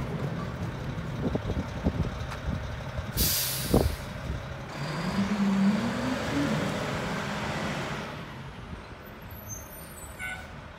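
Mack garbage truck with a Heil rear-loader body: a few knocks, then a short sharp hiss of the air brakes releasing about three seconds in. The diesel engine then revs up in a rising note as the truck pulls away, growing fainter toward the end.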